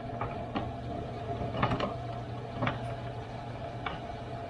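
Plastic radiator fan shroud being worked down into place against the radiator: about six light, scattered clicks and knocks of plastic parts meeting, over a steady low hum.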